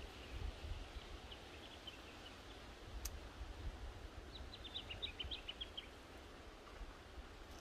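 Small birds twittering faintly in two quick runs of short high chirps, over a low wind rumble on the microphone. About three seconds in, one sharp click, the snip of pruning shears through a rose stem.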